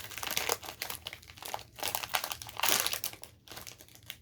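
Irregular crinkling and rustling of a pack of Panini Score trading cards and their plastic packaging being handled and sorted through by hand.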